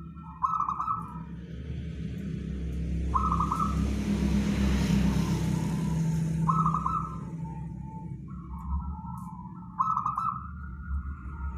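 Zebra dove (perkutut) cooing: four repeated phrases, each opening on a higher note and trailing into lower ones, about three seconds apart. A broad rushing noise with a low rumble swells and fades in the middle.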